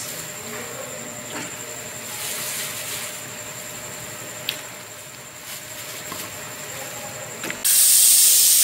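A few light clicks over a quiet background, then about seven and a half seconds in a pressure cooker's valve is opened and steam starts rushing out with a loud, steady hiss.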